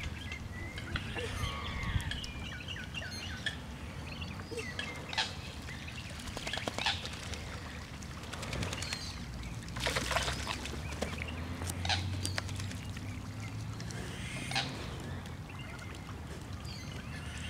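Hybrid mallard ducks making occasional short calls, among scattered brief sharp sounds, with a louder burst about ten seconds in.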